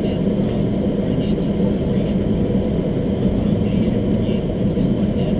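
Steady low rumble of a car's engine and cabin, heard from inside the car as it rolls slowly across a parking lot.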